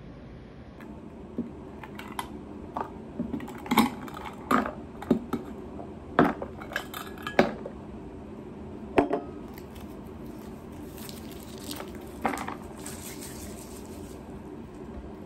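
Sharp, irregular clinks and taps of a cup and a stirring utensil against a tumbler as a drink is mixed, a dozen or so over the first nine seconds with the loudest around the middle. Softer stirring with a faint hiss follows, a couple of clinks among it.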